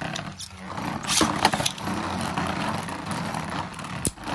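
Two Vanish Fafnir Beyblade spinning tops whirring and scraping across a plastic stadium floor in a steady hiss. A few sharp clacks come as they strike each other, the last near the end.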